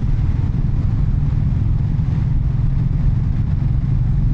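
Royal Enfield Classic 350's single-cylinder engine running steadily on the move, with steady wind rush, heard through a microphone inside the rider's helmet.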